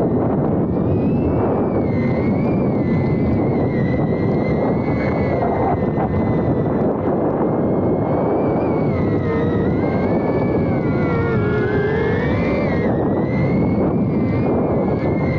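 Onboard audio of an iFlight A85 HD FPV cinewhoop in flight: heavy wind rumble on the microphone with the high whine of the drone's motors and propellers over it. The whine's pitch wavers with the throttle, sweeping down and back up about two-thirds of the way in.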